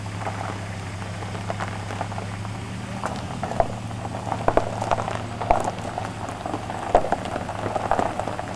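Pickup truck engine idling with a steady low hum, with scattered crackling and crunching on top that grows busier from about three seconds in.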